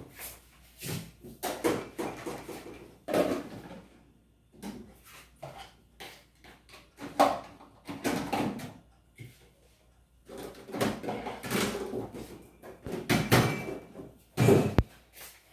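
Kitchenware being put away: irregular knocks and clatter of dishes and pots set down, with cupboard doors opening and closing.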